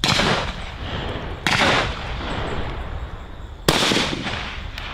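Three shotgun shots: one at the start, one about a second and a half later, and a third, the sharpest, about two seconds after that. Each trails off in a short echo.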